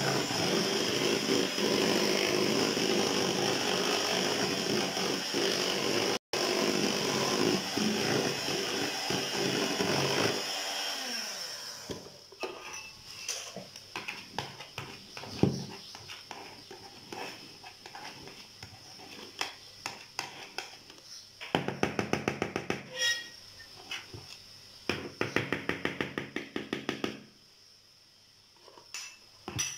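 Electric hand mixer running, its beaters whipping a thick cream mixture in a bowl, until it stops about ten seconds in. After that a spoon scrapes and stirs in the bowl, with runs of quick clicks.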